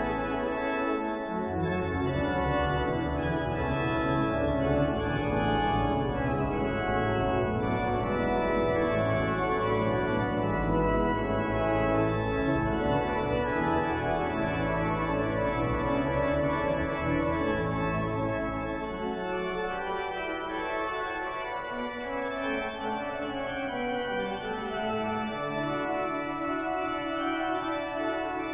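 Cathedral pipe organ playing full, sustained chords on manuals and pedals. About two-thirds of the way through, the deepest pedal bass drops away and the upper voices carry on.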